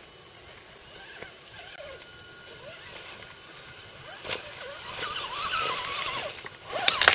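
Electric motors and gears of scale RC crawler trucks whining faintly, the pitch wavering up and down with the throttle as they crawl over logs. A sharp click comes about four seconds in, and a quick run of knocks near the end.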